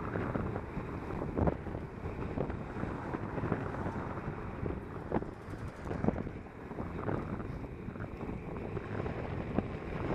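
Wind buffeting the microphone of a camera moving along a road, over a steady road rumble, with a few brief knocks.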